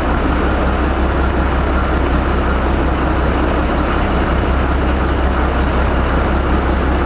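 Houseboat engine running with a steady low drone and a hiss over it, even throughout.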